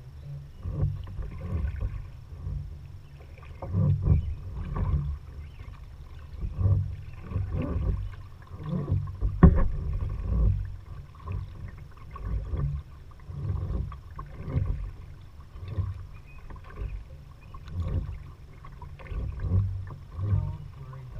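Kayak paddling: paddle blades dipping and pulling through the water, with low surges about once a second, uneven in strength.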